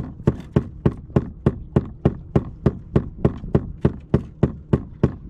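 Regular knocking, about three sharp knocks a second, keeping an even beat.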